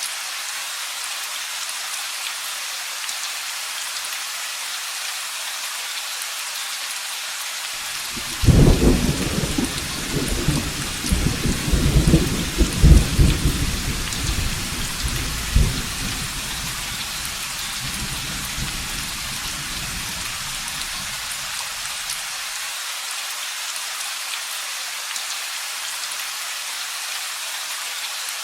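Steady rain falling, with a rolling clap of thunder that breaks sharply about a third of the way in, rumbles loudest for several seconds and dies away well before the end.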